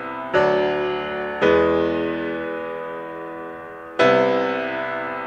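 Background music of piano chords, each struck and left to ring down, with a new chord about half a second in, another a second later, and a third near the end.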